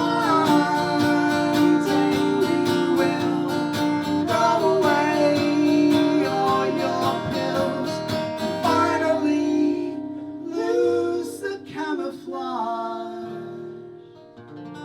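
Live band music led by a strummed acoustic guitar with a singing voice, dying away over the last few seconds.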